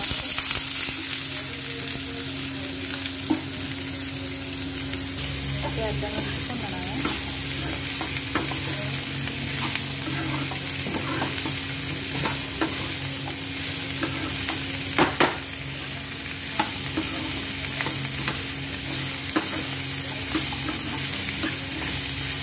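Chopped red onions sizzling as they fry in hot mustard oil in a pan, the sizzle starting loudly as they are tipped in. A steel spoon scrapes and knocks against the pan as it stirs them, with the loudest pair of knocks about halfway through.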